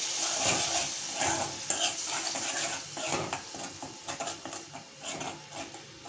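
Ground onion paste sizzling in oil in a hammered aluminium kadai while a metal spoon stirs and scrapes against the pan, the onions being sautéed. The sizzle slowly dies down while the spoon scrapes and clinks on.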